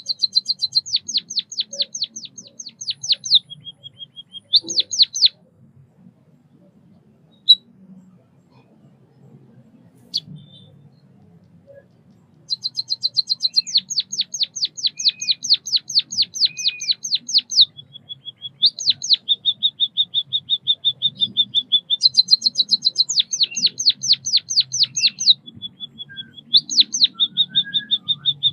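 White-headed munia singing: fast runs of high, sharp chirps, about six a second, in phrases that alternate with steadier buzzing trills. The song stops for several seconds in the middle, broken only by a couple of single ticks, then resumes.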